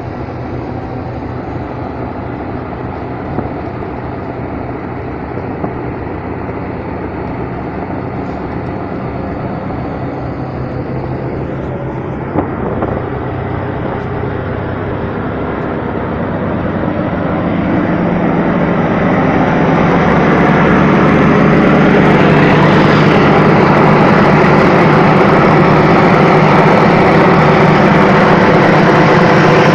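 Steady mechanical drone on the deck of a river passenger ship: the vessel's engines humming low, with the whir of the deck's air-conditioner units. It grows louder with a broad rushing noise about two-thirds of the way through, then holds steady.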